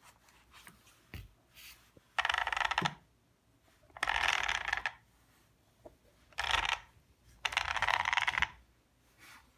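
The drivetrain of an Arrma Senton 3S BLX V3 RC truck, turned over by hand: four bursts of rapid gear clicking and whirring, each about a second long.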